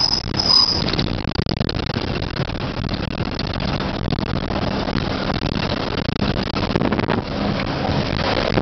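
Steady engine and road noise of a moving motor vehicle, heard from inside it, with two brief high-pitched squeals in the first second.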